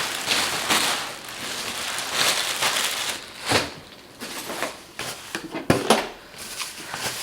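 Packing material being handled and pulled about, crinkling and rustling in irregular swishes, with a few sharp knocks about three and a half and six seconds in.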